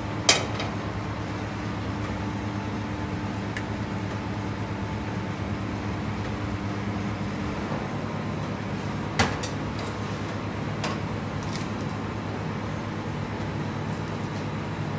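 Steady low hum of a working kitchen, with a sharp metal clank about a third of a second in as a black iron frying pan is set down on the gas range, and another metal clank about nine seconds in, with a few lighter clicks of utensils.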